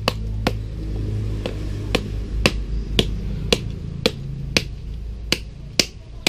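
Machete blade striking a coconut again and again, sharp knocks about two a second as it is worked around the nut.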